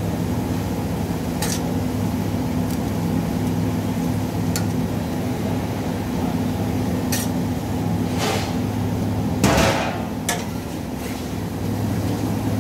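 Sharp metallic taps and clinks of kitchen work at a steel griddle, one every second or two, the loudest about nine and a half seconds in, over a steady machine hum.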